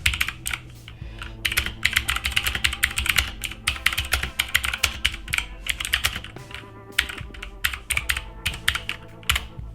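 Fast, continuous typing on the Aukey KM-G3 RGB keyboard's generic blue mechanical switches, each keystroke a sharp click. There are brief pauses, one about a second in.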